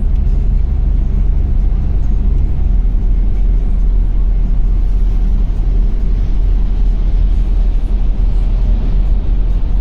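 A vehicle in motion, giving a loud, steady low rumble.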